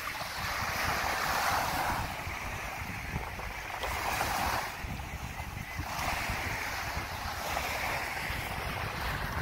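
Small waves breaking and washing up the beach, the hiss of the surf swelling and fading several times, with wind rumbling on the microphone.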